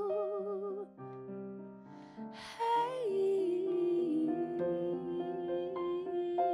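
Female R&B vocalist singing a slow soulful ballad over sustained electric keyboard chords. Her note with vibrato breaks off about a second in, the chords carry on alone briefly, and then she comes back in and holds a long note.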